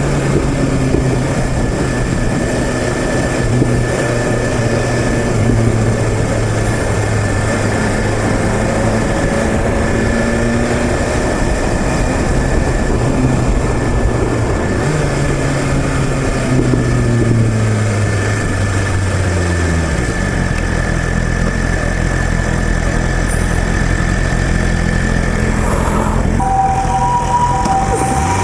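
2021 BMW S1000RR's inline-four engine running under way, with rushing noise, its note shifting then dropping as the bike slows, settling to a low steady idle about twenty seconds in. Near the end an ambulance's two-tone hi-lo siren starts up.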